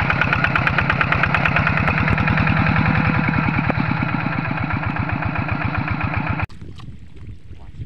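Hand tractor's single-cylinder diesel engine chugging steadily with a fast, even beat as the tracked machine works through deep paddy mud. About six and a half seconds in the engine sound cuts off suddenly, leaving quieter wind noise on the microphone.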